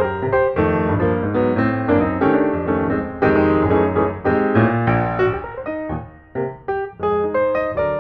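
Background piano music: a continuous run of melody and chords.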